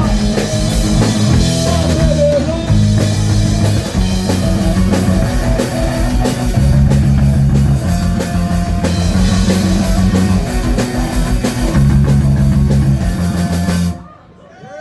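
Live rock band playing loud, with drum kit, guitar and a prominent bass line; the music stops abruptly about a second before the end.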